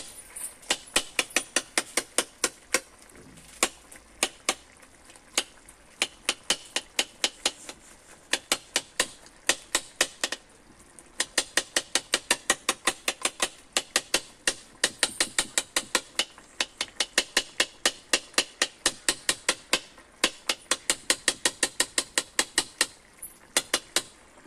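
Steel spoon knocking repeatedly against a metal karahi as tomatoes are mashed among chicken pieces, about three to four sharp metallic knocks a second, with a short break about ten seconds in.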